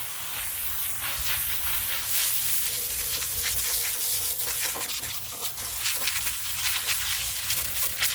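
Stiff brush scrubbing old painted concrete in quick, irregular back-and-forth strokes, a continuous scratchy hiss.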